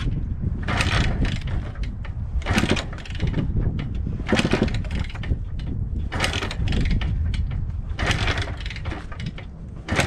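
Repeated kick-starting of a 1987 Kawasaki KDX200 two-stroke dirt bike that won't fire: a stroke about every two seconds, each turning the engine over. The owner puts the no-start down to the Lectron carburettor clogging with bad fuel.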